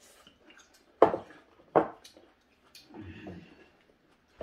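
Two sharp knocks of tableware about a second apart: a wooden bowl and chopsticks clacking against the dining table. A softer, muffled low sound follows about three seconds in.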